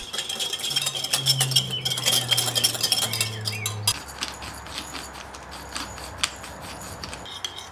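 Metal whisk beating a vinaigrette in a glass bowl, a rapid run of clinks against the glass. About four seconds in it stops abruptly, and a pepper mill grinds over the bowl with fainter, scattered crackling clicks.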